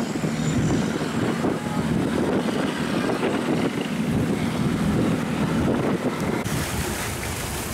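A river barge's engine running with a steady low drone, mixed with wind buffeting the microphone. A brighter hiss comes in about six and a half seconds in.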